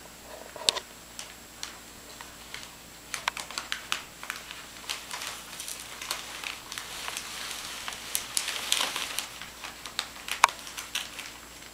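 Christmas wrapping paper rustling and crinkling as it is handled, in quick, irregular crackles that grow busier after the first few seconds.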